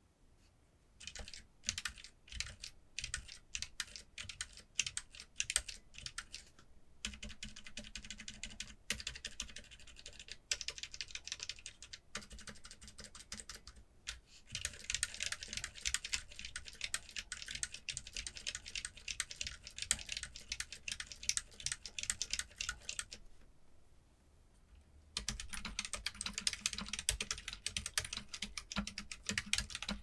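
Stock Outemu Silent White silent linear key switches being pressed on a CIY Tester68 keyboard with a silicone plate dampener and bottom foam. Separate key presses at first build into rapid, continuous pressing. After a short pause near the end, two-handed typing follows.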